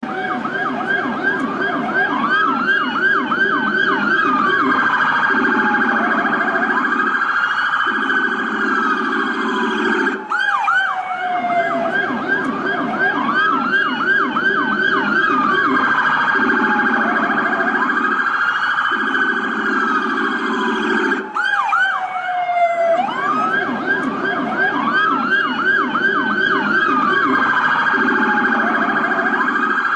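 Police car siren cycling through its modes: rapid yelping warbles, a slow rising-and-falling wail, then a long falling glide. The pattern repeats about every eleven seconds, over a lower pulsing tone.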